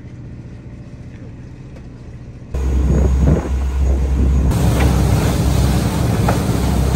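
Fishing boat running underway: steady engine rumble with wind rushing on the microphone, jumping much louder about two and a half seconds in.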